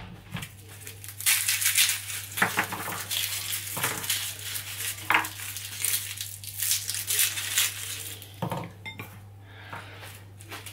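A garlic bulb being broken apart into cloves by hand on a plastic chopping board: dry papery skins crackling and rustling, with a few light knocks on the board.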